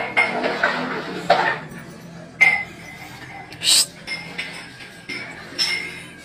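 Ceramic plates and dishes clinking and clattering as they are washed by hand at a sink: a string of sharp clinks, several ringing briefly, with a short high hiss a little past halfway.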